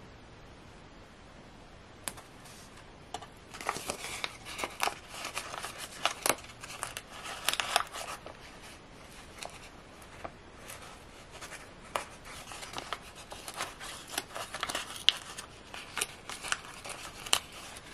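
Paper rustling and crinkling with scattered sharp clicks and ticks as a sheet of planner stickers is handled and stickers are peeled off it. Quiet at first, with one click about two seconds in; the rustling starts about three and a half seconds in and comes in short bursts.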